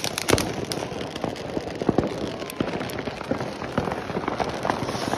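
Fireworks crackling: many small, irregular pops and crackles in quick succession, none standing out as a single big bang.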